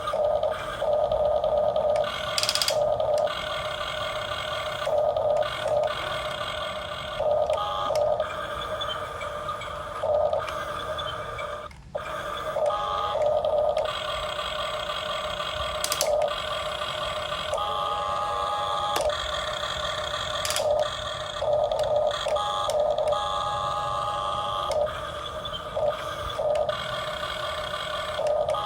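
Electric motors of a radio-controlled model excavator whining steadily, surging louder for about a second at a time again and again as the controls are worked, with a brief dropout about twelve seconds in.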